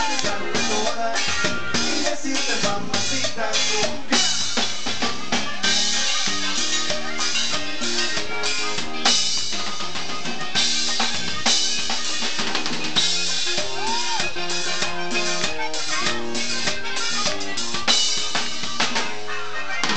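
A Tejano band playing live, with the drum kit keeping a steady beat of kick, snare and rimshots under a moving bass line and melody.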